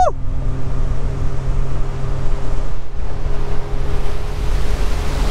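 Speedboat running fast on open water: the outboard motor hums steadily under the rush of water off the hull and wake, with wind on the microphone.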